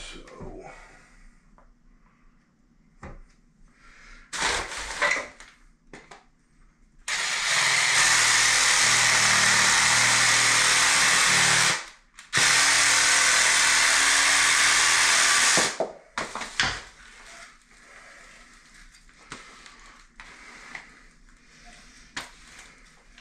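A power tool cutting PVC pipe: it runs steadily for about four seconds, stops briefly, then runs about four seconds more. A few short knocks of plastic pipe and fittings being handled come before and after.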